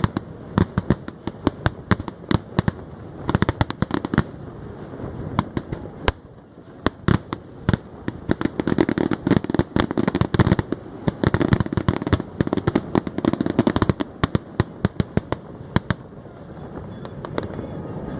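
Fireworks going off in rapid succession: dense volleys of sharp bangs and crackles, thinning briefly about six seconds in and again near the end.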